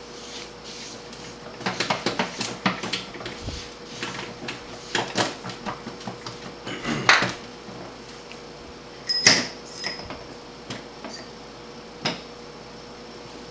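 Hands working over a bare cast-iron cylinder head: a rag wiping and rubbing, with scattered knocks and clatters of parts being handled. About nine seconds in comes one sharp metallic clink that rings briefly. A faint steady hum runs underneath.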